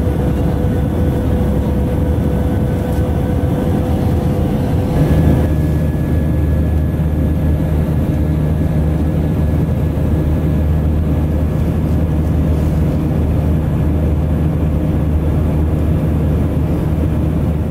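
Airbus A319 jet engines and airflow heard from inside the passenger cabin: a loud, steady drone with low hum tones. About five seconds in, the tones shift, with one higher tone dropping out and another, higher one coming in.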